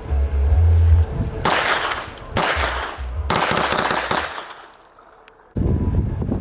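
Three gunshots about a second apart, each with a ringing echo tail. Wind buffets the microphone with a low rumble in the first second and again near the end.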